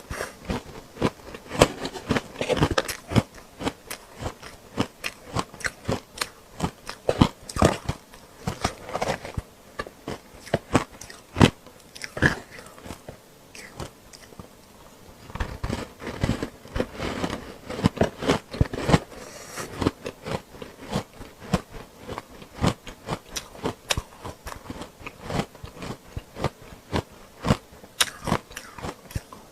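Ice chunks coated in matcha green tea powder being bitten and chewed: a fast, irregular run of crisp cracks and crunches, thinning out briefly about halfway through.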